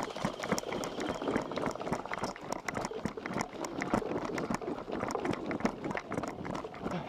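A person running, footsteps landing in quick, uneven succession.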